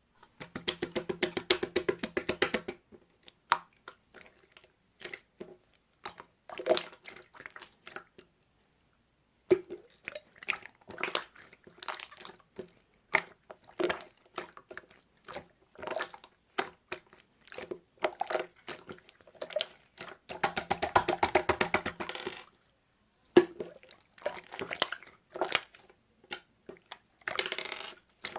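Slime worked by hand: runs of rapid small popping clicks as air pockets burst, near the start and again about two-thirds through, with single wet pops and squishes between.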